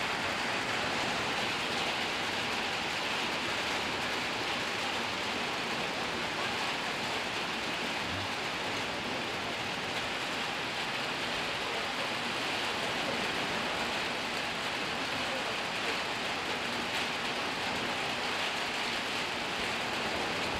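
Steady rain falling, a continuous even hiss of droplets, the rustle of raindrops.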